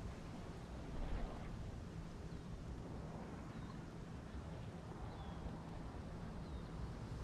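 Wind buffeting the microphone in low, uneven gusts over a steady outdoor hiss, with a few faint short high chirps now and then.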